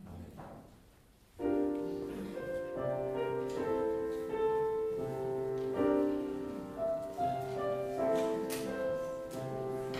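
Piano music starts about a second and a half in, playing chords: the closing postlude of the service.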